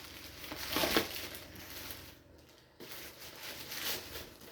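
Packaging rustling and crinkling as it is handled, in uneven swells with a short lull a little after two seconds.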